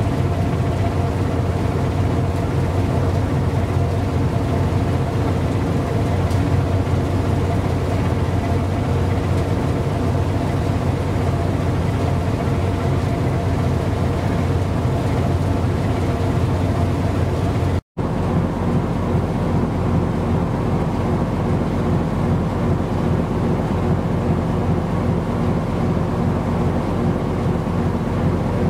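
Steady low engine drone with a constant hum, from a boat or ship on the water. A split-second dropout about two-thirds of the way through breaks it, and after it the drone sounds slightly different.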